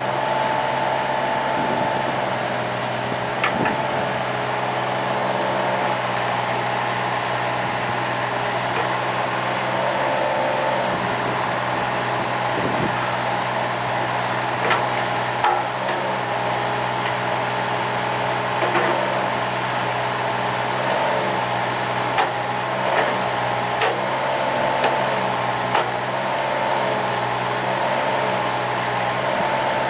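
Cat 303.5E mini excavator's diesel engine running steadily, with a whine that shifts in pitch now and then. Several sharp knocks and clanks come through, a handful of them in the second half.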